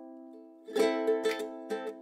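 Background music on a plucked-string instrument. A chord rings and fades, then a fresh chord and a few quick single notes are picked from about three-quarters of a second in.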